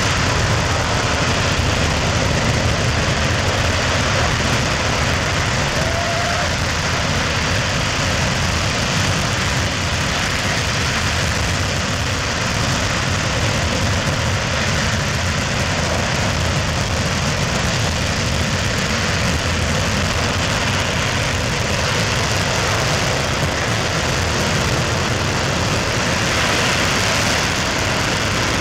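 SpaceX Merlin 1D rocket engine firing in a static test: a steady, loud, unbroken rush of noise with a heavy low rumble.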